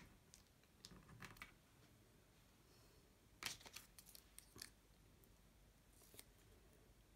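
Small craft scissors snipping glitter card: a scatter of faint short snips, one group about a second in and a louder group from about three and a half to four and a half seconds in.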